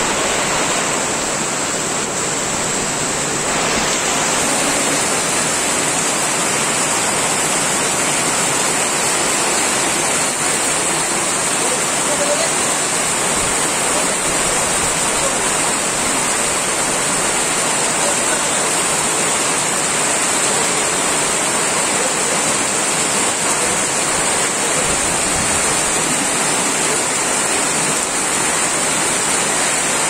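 Heavy rain pouring down in a steady, dense hiss.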